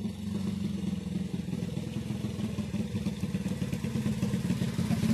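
Small moped-style motorcycle running at low speed as it rides up, its engine growing steadily louder as it approaches.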